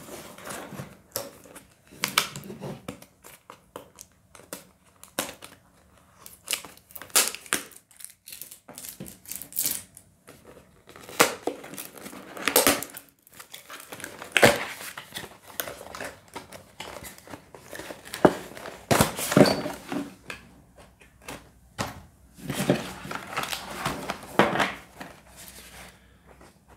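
A cardboard product box being opened by hand: irregular scrapes, rustles and taps as the card sleeve and flaps are slid and pulled, with paper instruction sheets crinkling.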